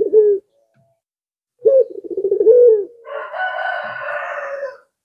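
Caged puter pelung (domestic ringneck dove) cooing: the tail of one low, pulsing coo at the start, then after a pause another coo with a slight rise and fall. This is followed by a harsher, higher drawn-out call lasting nearly two seconds that stops shortly before the end.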